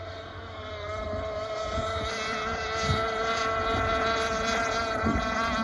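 Engine of a Bonzi Sports 47 Skater RC speedboat running at speed, a steady, slightly wavering drone that grows louder as the boat comes nearer. The note drops lower near the end. Wind rumbles on the microphone.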